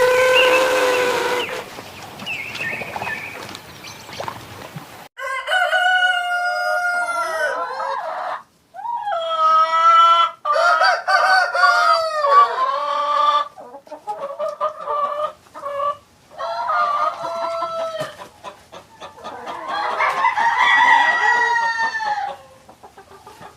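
Rooster crowing several times, long drawn-out calls, with a run of short clucking calls in between.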